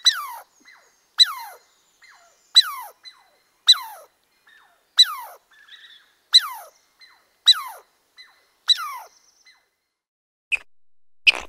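An animal call repeated about every 1.3 seconds, each one a sharp high note that slides quickly down in pitch. Near the end the calls stop and a couple of short sharp clicks follow.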